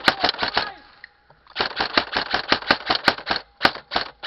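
Airsoft gun firing rapid runs of shots, about eight a second, with a brief pause about a second in.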